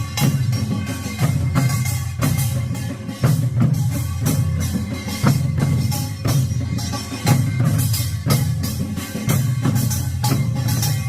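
Korean pungmul percussion: buk barrel drums beaten in a steady, even rhythm of repeated strikes.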